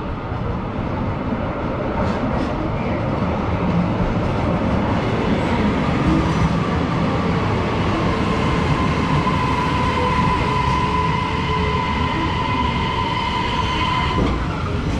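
JR Hokkaido electric train pulling into an underground station platform, wheels and running gear rumbling. A steady whining tone builds through the middle and cuts off sharply about fourteen seconds in.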